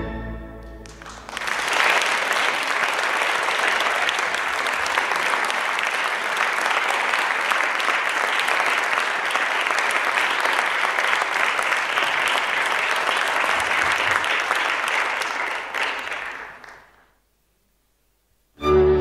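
Audience clapping for about fifteen seconds, starting about a second in and fading out. Before it the last notes of the music die away, and near the end, after a moment of silence, new music begins.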